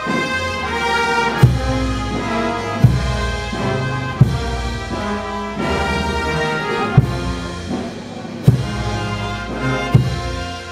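Brass band playing a slow processional march, sustained brass chords over a bass drum stroke about every second and a half.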